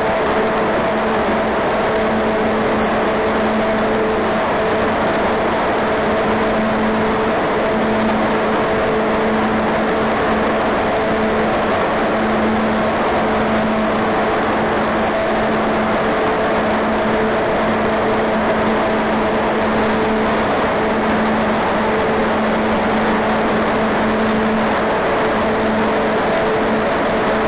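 Automatic box freezing plant running: a steady even rush of machinery noise with a constant low hum and a couple of fainter higher tones.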